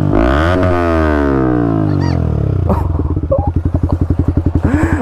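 Yamaha R15 M's single-cylinder engine being revved through its exhaust: the revs fall away, are blipped up once more just after the start, then drop off. About three seconds in it settles into a lumpy, pulsing idle.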